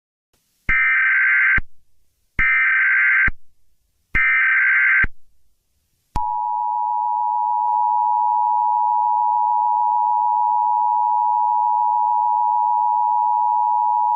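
Emergency Alert System tones. Three short buzzy data bursts of the SAME header, each just under a second long, are followed about a second later by the steady two-tone attention signal, which holds for about eight seconds. Together they signal the start of an emergency alert broadcast.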